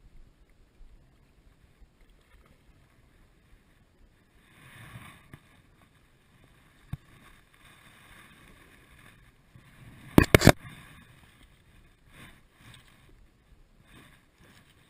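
Soft water swishing and rustling from an angler wading in shallow water, with a quick cluster of sharp, close knocks about ten seconds in and a few smaller knocks after.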